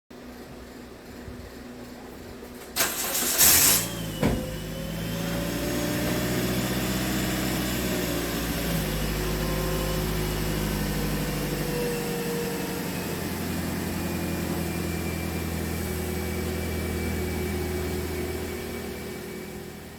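2010 Toyota Corolla's 1.8-litre 2ZR-FE four-cylinder engine cranked briefly by the newly installed starter motor, catching within about a second, then idling steadily with its idle speed slowly easing down. The engine starting shows that the starter replacement works.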